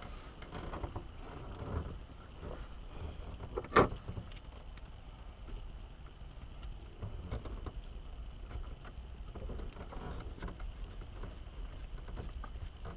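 Small clicks and rattles of parts and tools handled while the new ignition switch goes into the van's opened steering column, with one sharp click about four seconds in.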